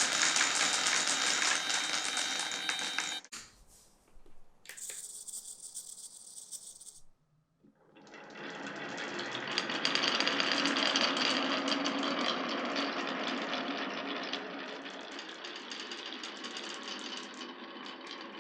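Glass marbles rolling and clattering down a marble run of wooden rails and pipes, a dense rattle of rapid ticks. It breaks off sharply about three seconds in, goes quiet, and the rattle builds again around eight seconds in, then slowly fades.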